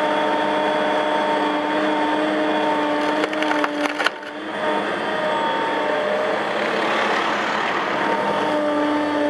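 Cat M316D wheeled excavator running with a steady hum from its engine and hydraulics while its tree-shear head cuts through a tree trunk. About three seconds in comes a run of wood cracking and splintering, ending in a sharp snap just after four seconds as the trunk is severed. The machine's hum drops back, then returns near the end.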